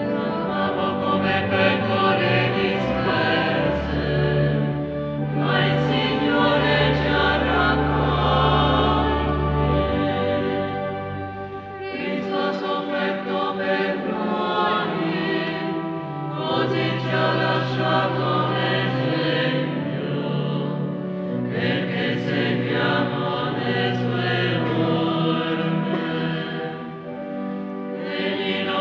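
Congregation singing a hymn in unison, in phrases of a few seconds each with short breaks between, over an accompaniment holding long low notes.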